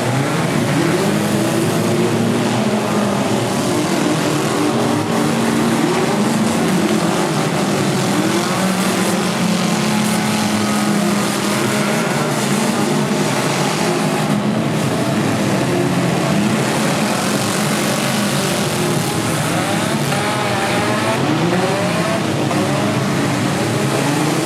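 Many four-cylinder demolition derby cars revving their engines at once, their pitches rising and falling over one another without a break.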